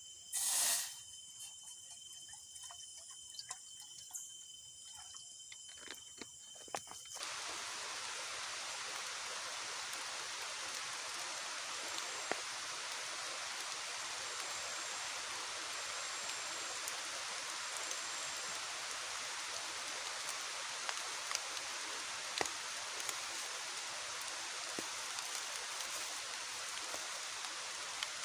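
Heavy rain falling, a steady hiss that starts abruptly about seven seconds in, with occasional sharp drip ticks. Before it there is a quieter stretch with a brief loud swish near the start and scattered ticks.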